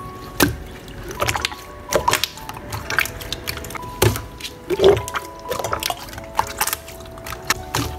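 Slime being squished and poked by hand, making irregular wet clicks and pops, the loudest about five seconds in, over background music.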